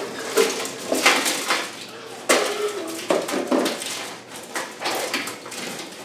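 Dried pine cones poured out of a wooden basket onto a foil-lined metal cookie sheet and spread by hand: a string of light, irregular clatters and foil crinkles.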